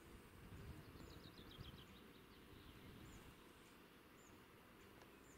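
Faint outdoor ambience. A small bird sings one quick trill of repeated notes stepping down in pitch about a second in, with thin high chirps about once a second over a low, uneven rumble.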